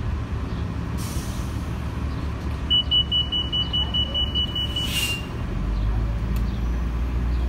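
New Flyer DE40LF diesel-electric hybrid bus pulling slowly into a stop with its engine running. About a second in there is a hiss of air. In the middle a steady high squeal lasts about two seconds and ends in a short burst of air hiss, after which the engine rumble grows louder as the bus draws near.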